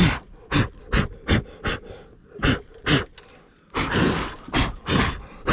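Quick rasping strokes of a hand tool scraping the old wooden beehive box, about three a second at first, then a denser stretch of scraping near the end.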